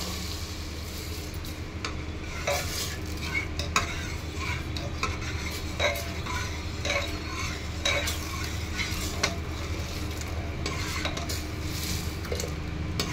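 Metal ladle stirring thick dal in an aluminium pressure cooker, with irregular clinks and scrapes against the pot's sides, as a just-added tadka of cumin, chillies and curry leaves is mixed in.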